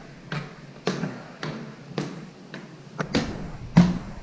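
Footsteps climbing open-tread wooden stairs, a knock about every half second, the loudest near the end.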